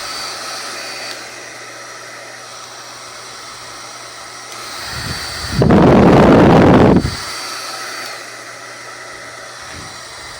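WADODO 2200 W ionic hair dryer (AC motor) running steadily: an even rush of air with a faint motor whine. About five and a half seconds in, the airflow turns loud and full for a second and a half, like a blast of air straight onto the microphone, then settles back.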